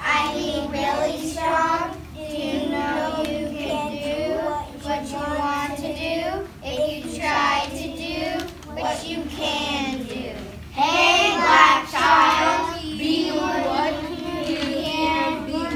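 A class of young children's voices in unison, chanting a poem together from their sheets in a sing-song chorus. The voices get louder about eleven seconds in.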